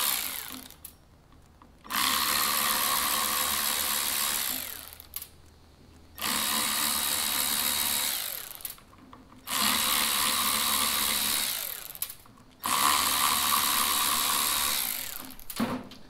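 Small cordless power tool with a T9 Torx bit running in four bursts of about two and a half seconds each, with short pauses between, backing screws out of a throttle position sensor on a car's electronic accelerator pedal assembly.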